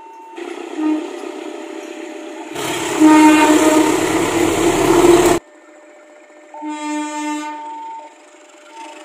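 Train air horns sounding in a string of short clips cut together. In the middle, a loud stretch of about three seconds has a horn blaring over the deep rumble of a train, and it cuts off abruptly. A shorter blast follows near the end.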